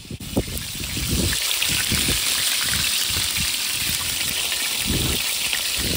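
Chicken wings deep-frying in hot oil in a large steel pot, a steady sizzle that grows louder about a second in and then holds.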